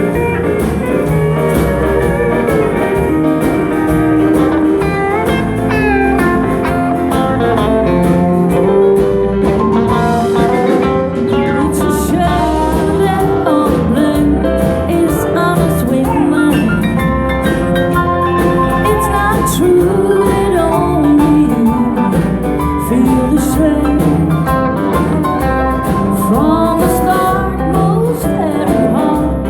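Live country band music, with guitar to the fore.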